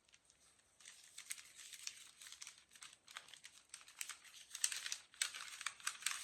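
Plastic packaging crinkling and rustling as it is unwrapped by hand, in irregular bursts that grow louder about four and a half seconds in.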